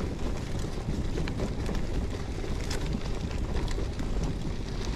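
Wind rushing over the microphone and the rolling noise of a gravel bike's tyres on a forest track, with scattered small ticks.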